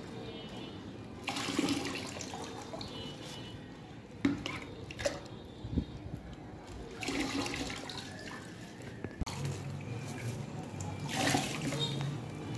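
Water poured from a plastic mug over a child's head in several pours, splashing onto a plastic sheet and into a basin, to cool a fever.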